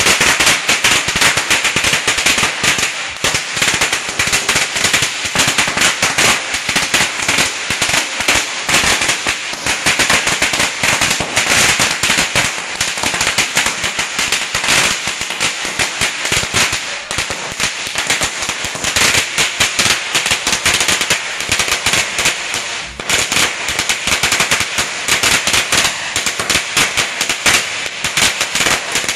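A long string of red firecrackers going off in a continuous, rapid crackle of loud bangs, with a brief lull about three-quarters of the way through.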